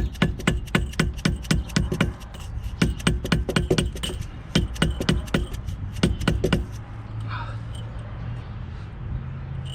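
Rapid metal-on-metal tapping, about four strikes a second, as the brake caliper's pad pins are knocked into place. It stops about two-thirds of the way through, leaving a low steady hum.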